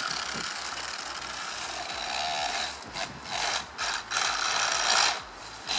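Electric RC truck's drivetrain grinding and rasping as it creeps along at low speed, breaking into stop-start bursts in the second half. This is the scratching the owner puts down to too much play at the main spur gear.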